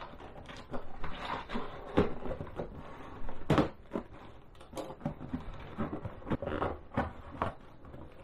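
Scissors cutting through packing tape and corrugated cardboard on a long box, with irregular snips, scraping and cardboard flaps being pulled and handled. Sharp knocks stand out about two seconds and three and a half seconds in.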